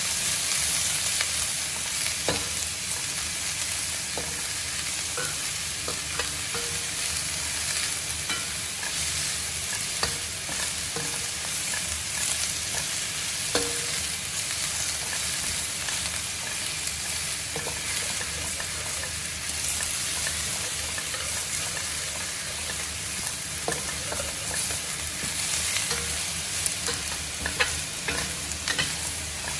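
Shredded cabbage and meat sizzling in a stainless steel wok as they are stir-fried, with a metal spatula scraping and clinking against the pan now and then, more often near the end.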